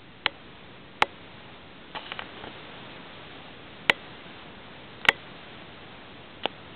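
Belgian Hare rabbit's feet and claws tapping on a hard floor as it hops about, sharp single clicks at irregular intervals of roughly a second, with a quick cluster of taps about two seconds in.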